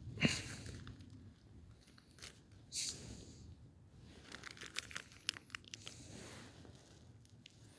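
A cheese-sauce packet being torn open and handled: a few short rips and crinkling crackles, with a sharp click near the start.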